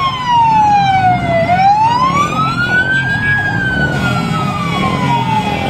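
Emergency vehicle siren wailing, its pitch sliding slowly down, back up and down again over a few seconds, over a low rumble of passing vehicle engines.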